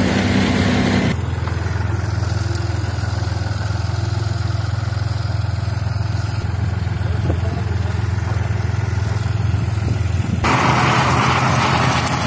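Tractor engine running steadily under load, driving a Fieldking rotary slasher through dry grass. Near the end a louder rushing, chopping noise of the spinning blades cutting the grass comes in over the engine.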